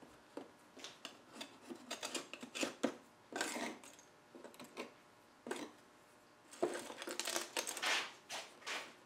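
Hand-tool work on a glass-paned wooden cabinet door: irregular clicks, taps and short scrapes, with longer scraping passes around the middle and again near the end.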